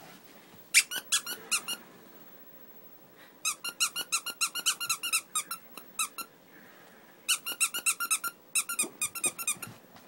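Squeaky dog toy squeaked in quick runs as a puppy chews on it. A short run comes about a second in, a long run of some twenty squeaks starts after about three and a half seconds, and another run comes near the end.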